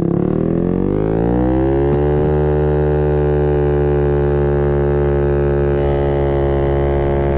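Maddog 50cc GY6 (139QMB) scooter engine, with a 90cc big-bore kit and the blue aftermarket racing CDI, accelerating hard from a standstill. Its pitch rises over the first two seconds, then holds steady while road speed keeps climbing, as the CVT shifts up.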